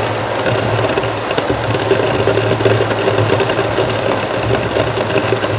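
Heavy rain falling, a dense steady patter with scattered drop ticks, over a steady low hum.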